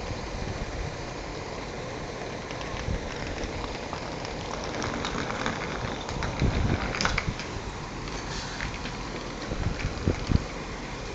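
Wind buffeting a phone microphone, with low thumps at about six and a half and ten seconds, over a steady rushing rumble as an Irish Rail 22000 class diesel railcar draws into the platform.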